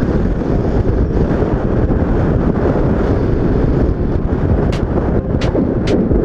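Wind buffeting the microphone of a moving motorcycle, over a steady rumble of the ride. A few short sharp ticks in the last second and a half.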